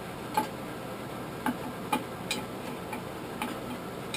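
Blacksmith's tongs and the hot tomahawk head clinking lightly against a metal box of lime, about six short, irregular metallic clicks over a steady low hiss, as the tomahawk is buried in lime to cool slowly and anneal.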